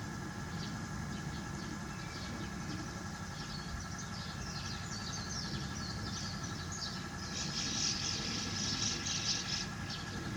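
A steady low mechanical hum with a faint high steady whine, like a running pump or engine. Short high chirps are scattered over it, thickest between about seven and nine and a half seconds in.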